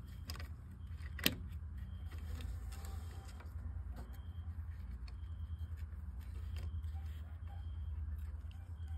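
A steady low hum, with light ticks and rustles from a nylon cord and fingers handling wooden sticks, and one sharp click about a second in.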